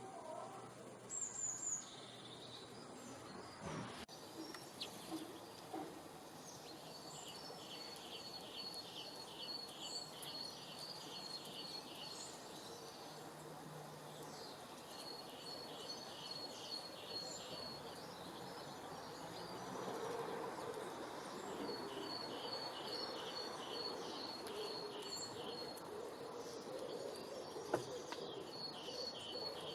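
Birdsong over steady outdoor ambience: a bird sings phrases of rapid, evenly spaced high notes lasting a few seconds each, repeated several times, with a single sharp click near the end.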